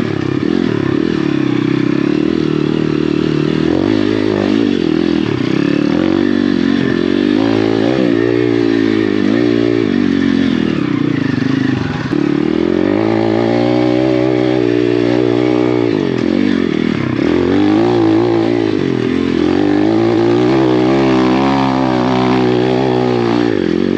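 Apollo RFZ pit bike's 150cc swapped single-cylinder engine working under load on a trail climb. The revs rise and fall every few seconds as the throttle is opened and backed off.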